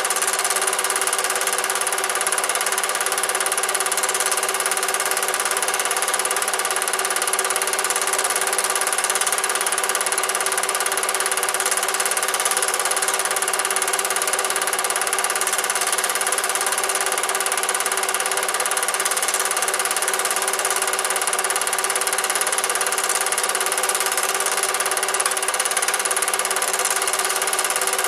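Cine film projector running steadily, its motor and film mechanism making a constant mechanical whirr.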